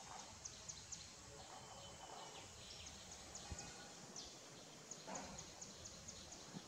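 Faint outdoor ambience in leafy woodland, dotted with many short, high-pitched chirps.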